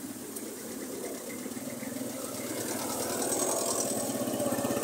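Motorcycle engine running close by at low speed, getting louder as it comes alongside near the end, amid the engines of slow street traffic.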